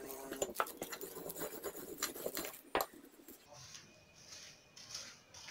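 Wooden rolling pin rolling dough under a clear plastic sheet: quiet scraping and crinkling of the plastic with small clicks. A sharp knock comes just before the halfway point as the pin is set down on the table, followed by softer rustles of the plastic.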